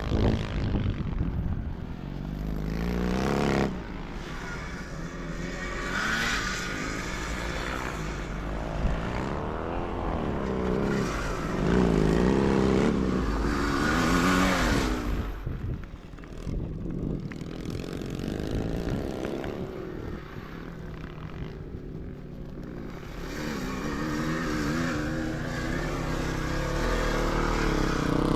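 Motocross sidecar outfits' engines revving and passing by, the pitch rising and falling as machines accelerate and go past, with several louder passes.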